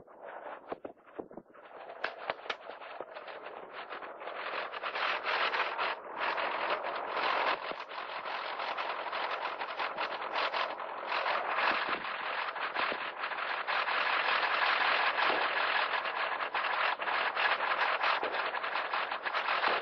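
Heavy gunfire, many shots in quick succession, growing denser and louder after the first couple of seconds.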